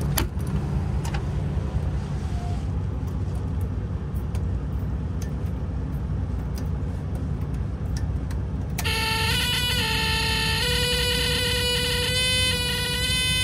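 Steady low rumble of a running truck, with a few faint clicks. About nine seconds in, music enters over it with a long held note that steps up in pitch once.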